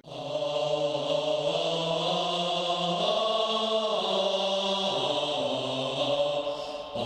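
Background music: sustained, chant-like held tones that shift pitch about three and five seconds in.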